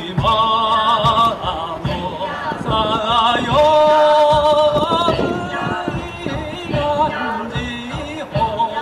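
Live band playing a Latin-style arrangement of a Japanese fishermen's folk song: a singer holds long, wavering notes over steady drum hits.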